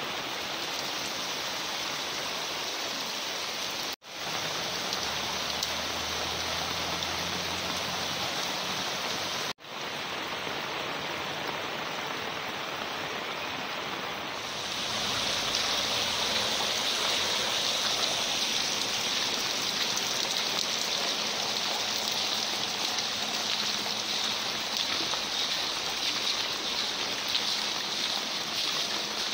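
Muddy storm runoff rushing down a paved street, with rain falling, as a steady rush of water. It breaks off for an instant twice in the first ten seconds, and the rush grows louder about halfway through.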